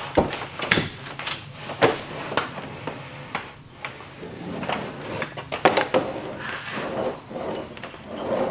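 Wooden rolling pin pressed and rolled over a Formica laminate sheet to bond it on contact cement: a scraping roll broken by many sharp clicks and knocks.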